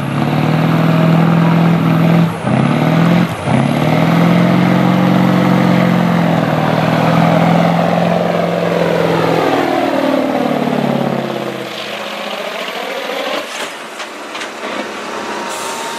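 Diesel semi truck's engine running hard at high revs under heavy load while pulling a weight-transfer sled, with two brief drops in revs about two and three seconds in. After about ten seconds the revs fall away and the engine runs much quieter as the pull ends.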